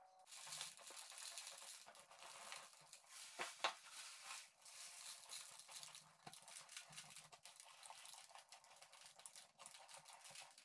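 Faint rustling and crackling of dry leaves and twigs being sifted by hand in a cardboard tray, with many small clicks and a sharper knock about three and a half seconds in.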